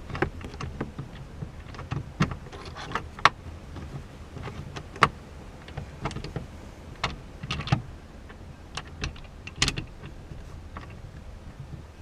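Irregular small clicks and taps of a bolt and a metal grab handle being handled and threaded in by hand, with a few sharper knocks, over a low steady hum.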